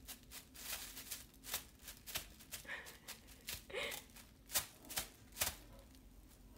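Thin plastic shopping bag crinkling and rustling in irregular bursts as a cat paws at it, with a couple of louder crackles near the end.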